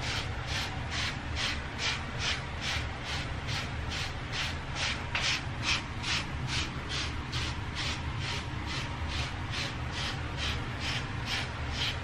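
Hairbrush bristles scraping through short hair in quick, regular strokes, about two or three a second, over a steady low hum.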